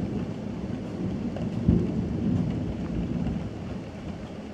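Rolling thunder rumbling, swelling to its loudest a little under two seconds in and then slowly dying away, with rain falling.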